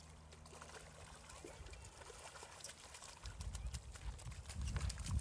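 A hooked fish thrashing and splashing in shallow water as it is reeled in to the shore. Short sharp splashes and clicks come throughout, growing denser, with a low rumble on the microphone from about three seconds in.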